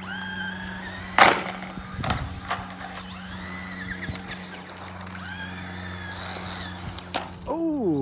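Brushed Traxxas Bandit RC buggy speeding up three times, its motor and gears whining up in pitch and then holding. A sharp knock about a second in is the loudest sound, with lighter knocks a second later and again near the end, then a falling tone.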